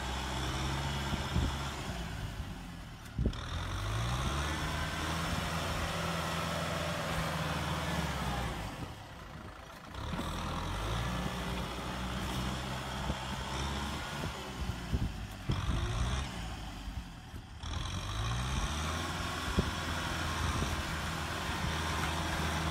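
Kubota tractor's diesel engine working as the front blade pushes wet mud. Its revs drop three times and climb back up each time, with a few knocks.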